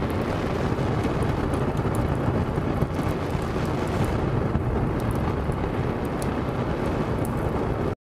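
Steady, loud rumbling noise with faint scattered crackles, cutting off abruptly at the end.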